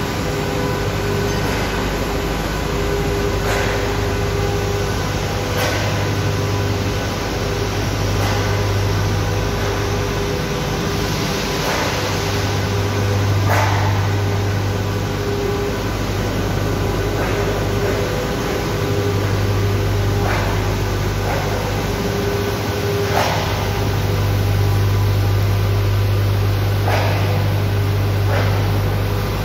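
Loud, steady drone of running machinery inside a coal-fired power station unit: a deep hum with a few steady higher tones over it, and brief rushes of noise every few seconds.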